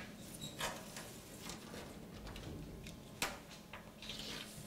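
Faint rustling and light taps as a strip is fixed to a blackboard, with one sharper click about three seconds in, over a low steady hum.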